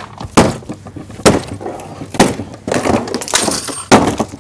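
An LED TV screen being smashed: five hard blows about a second apart, with glass cracking and tinkling between them.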